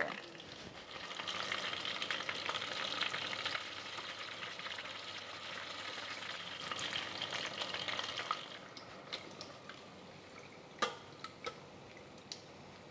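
Battered chicken wings frying in hot oil in an electric deep fryer: a steady fizzing sizzle with crackles that dies down about eight seconds in. A few sharp metal clicks follow near the end as the wire fry basket is lifted.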